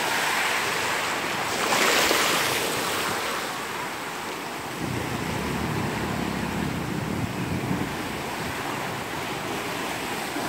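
Ocean surf washing up the beach on a rising tide, with a wave's foaming wash loudest about two seconds in. A low rumble of wind on the microphone comes in about halfway through.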